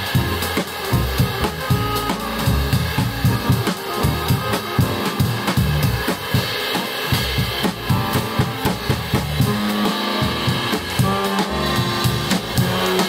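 A jazz trio of plucked double bass, drum kit and accordion playing a busy, driving piece, with the drums and bass most prominent.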